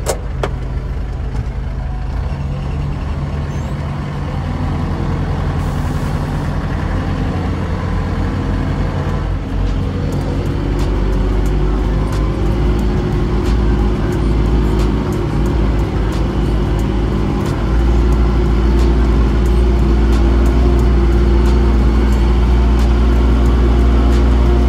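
Pegas-Agro Tuman-3 self-propelled sprayer's engine running, heard from inside the cab as the machine pulls away. The engine note gets louder in steps about four, eleven and eighteen seconds in, with small clicks and rattles throughout.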